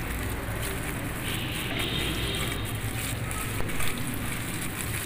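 Chicken shami kababs shallow-frying in hot oil in a pan, a steady sizzle. About three and a half seconds in, a wooden spatula knocks and scrapes briefly against the pan as the kababs are turned.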